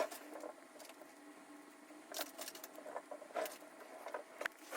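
Faint scattered clicks and light rattles of small parts and clamps being handled and set in place on a phone, over a faint steady hum.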